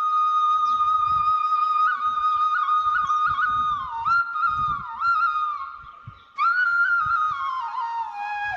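Background flute music: a slow melody of long held notes with quick ornamental turns. It breaks off briefly about six seconds in and then resumes.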